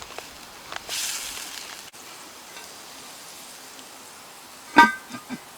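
A metal utensil knocking against a Dutch oven during cooking: one sharp ringing clank near the end, followed by two small knocks. Earlier there is a brief hiss of about a second.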